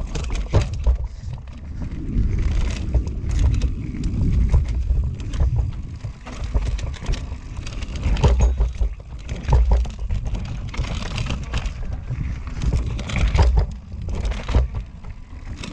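Mountain bike descending a rough, rooty dirt trail, heard from a rider-mounted action camera. The tyres run over dirt and roots while the bike rattles and knocks on each bump, over a constant rumble of rushing air on the microphone.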